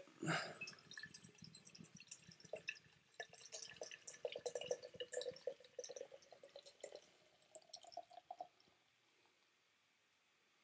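Imperial stout poured slowly from a can into a stemmed glass: faint trickling and dripping of the liquid into the glass, which stops about eight and a half seconds in.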